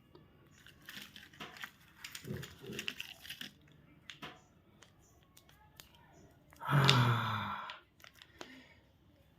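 Candy or chocolate wrapper being torn and crinkled open in short crackling rustles. About seven seconds in comes a louder, roughly one-second vocal sound.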